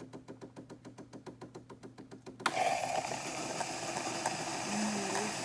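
Gaggia Babila super-automatic espresso machine ticking rapidly, about ten clicks a second. About two and a half seconds in, the ticking gives way to a sudden steady hiss of steam through the milk carafe's hoses and nozzles during its cleaning cycle.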